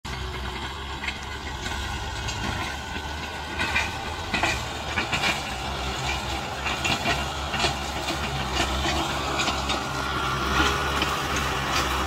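Kubota M6040 tractor's diesel engine running steadily under load as its front blade pushes soil and it drags a disc harrow, with frequent sharp clanks and rattles over the engine.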